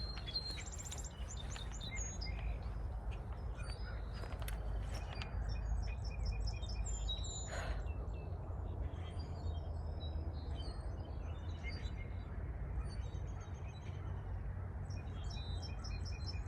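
Many small songbirds chirping and twittering on and off, short high calls and quick trills overlapping, over a steady low rumble of wind.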